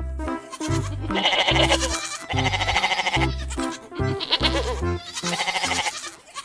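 Goats bleating, several wavering calls in a row, over background music with a repeating bass line.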